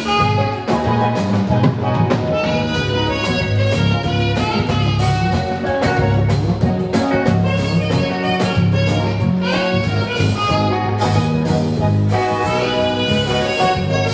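Live saxophone playing a lively melody over a backing band with a drum kit keeping a steady beat and a bass line underneath.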